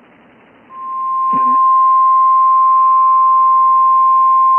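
Weather-radio warning alarm tone: a single steady, loud beep just above 1 kHz that starts about a second in, swells to full strength and holds. It is the attention signal that comes before a weather warning message. A brief low thump comes as it starts.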